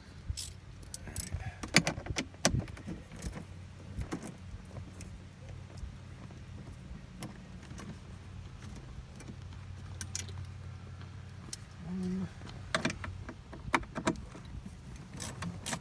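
Scattered metallic clicks and clinks of a socket wrench and 7 mm sockets being handled and worked on the glove-box screws, over a steady low hum.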